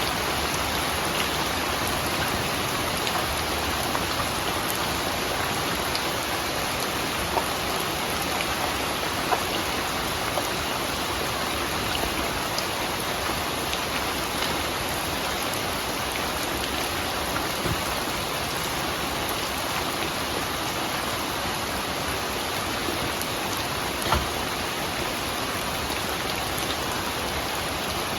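Steady rain falling, with now and then a louder single drop hitting close by.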